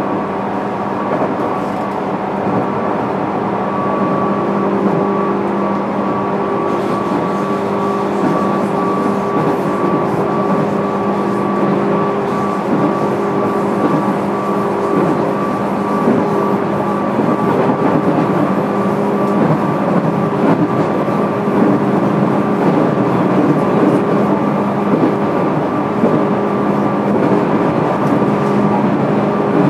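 Running noise heard inside the motor car of a JR East 205 series electric train: wheel-on-rail noise under a steady hum with a few held tones, slowly growing louder.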